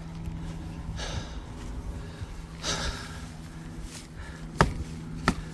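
A tired man's breathing, with a long breath about a second in and another near the middle, over a steady low rumble. Two sharp clicks near the end are the loudest sounds.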